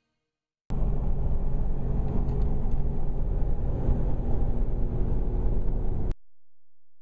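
Steady engine and road rumble of a car cruising at highway speed, heard from inside the car. It starts suddenly about a second in and cuts off suddenly near the end.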